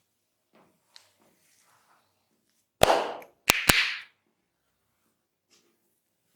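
Three sharp hand slaps from a tapping head massage: one, then two in quick succession about half a second later, each with a short ringing tail.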